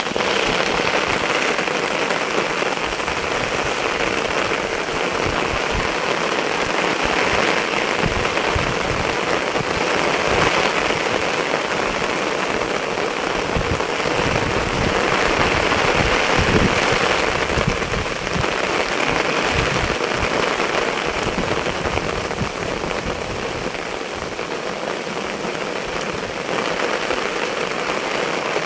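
Steady rain falling on open water, an even hiss of countless drops.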